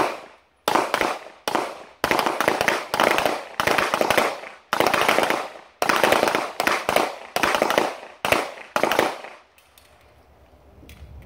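Handgun fire from several shooters on a firing line at once: rapid, irregular, overlapping shots, several a second, that stop about nine seconds in.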